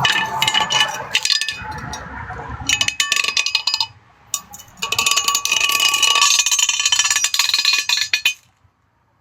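Metal lug wrench clinking and rattling against a car wheel's lug nuts in irregular bursts, with a bright metallic ring, stopping near the end. The loose-fitting factory wrench keeps slipping off the smooth lug nuts.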